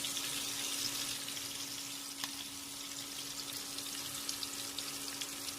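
Hot oil sizzling noisily in a frying pan as longganisa sausages fry, with scattered small pops and a steady low hum underneath.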